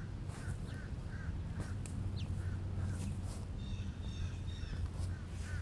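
A bird calling over and over, short calls about two or three a second, with a brief run of higher chirps about two thirds of the way in, over a steady low hum. A few sharp knocks or scrapes sound now and then.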